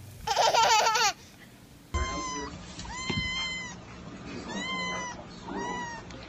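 A baby's loud, wavering vocal cry for about the first second. From about two seconds in, a young kitten meows repeatedly, about four high, thin meows, one of them longer than the rest.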